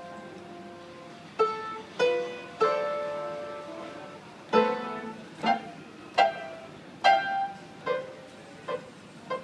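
Upright piano keys pressed by a young child: single notes and small chords struck one at a time, each ringing out and dying away. Three notes, a short pause, then a string of about eight more.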